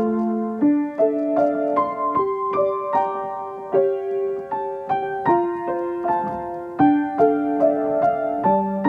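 Solo piano playing a gentle, lyrical melody: single notes struck about two or three times a second over held chords.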